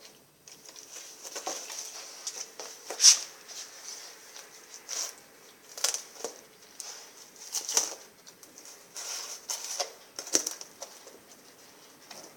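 Rottweiler eating sardines: irregular wet chewing and crunching, with short clicks at uneven intervals, the loudest about three seconds in.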